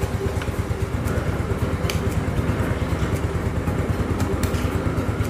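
Yamaha Mio One scooter's small single-cylinder engine idling steadily with a rapid even pulse, with a few faint clicks.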